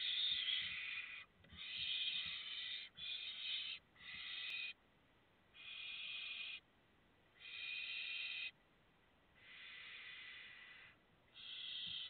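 Barn owl chicks giving their hissing, snore-like begging calls: about eight wheezy hisses, each roughly a second long, with short pauses between them.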